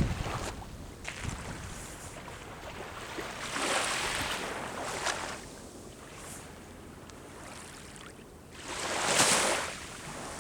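Sea waves breaking and washing up the shore, in two surges of surf hiss: a longer one a few seconds in and a louder, shorter one near the end. Wind rumbles on the microphone near the start.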